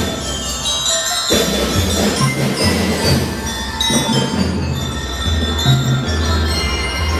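Drum and lyre band playing: bell lyres ring out a melody over a steady, repeating beat of drums.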